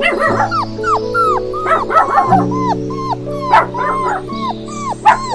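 A dog yipping over and over in short high-pitched calls, each rising and then falling in pitch, about two a second, over background music with long held notes.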